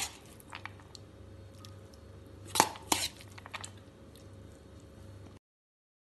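A steel spoon clinking and scraping against stainless steel bowls as moist salad is spooned out: a few sharp clinks, the loudest two close together about two and a half seconds in, over a faint steady hum. The sound cuts off to dead silence about five seconds in.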